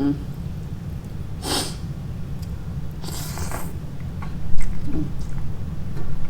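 Close-up eating sounds from a mukbang of seafood ramen: two noisy slurps, about a second and a half and three seconds in, then chewing with small clicks, over a steady low hum.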